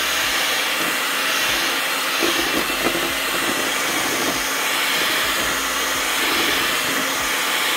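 Electric kitchen mixer running steadily with a whirring motor, whipping milk into a no-bake dessert mix.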